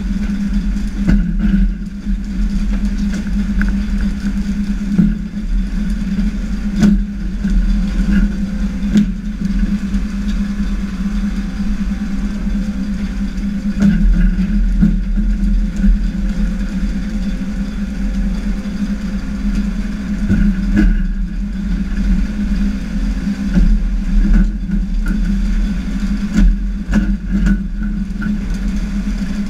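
A fishing boat's engine running with a steady low hum, under a constant rush of wind and sea, with occasional sharp knocks.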